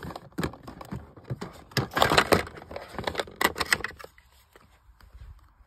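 Plastic storage drawer being rummaged through: quick clattering and rattling of plastic, loudest about two seconds in, dying down to a few faint clicks after about four seconds.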